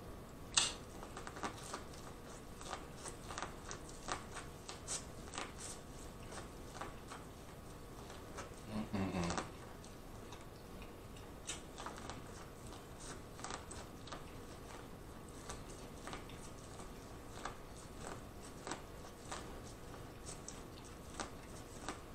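Close-miked eating of corn on the cob: scattered small crunches and wet mouth clicks as kernels are bitten off and chewed, with a brief low vocal hum about nine seconds in.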